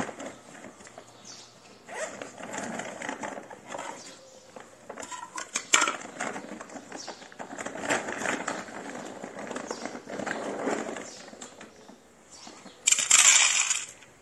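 Rustling and scattered clicks of handling near a ceramic plate on street tiles, then about a second of dry cat food being poured onto the plate near the end.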